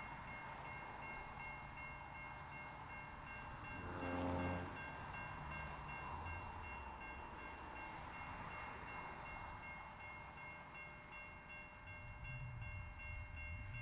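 Train horn sounding one short blast about four seconds in, over steady high-pitched ringing tones and a low rumble of the train that grows louder near the end.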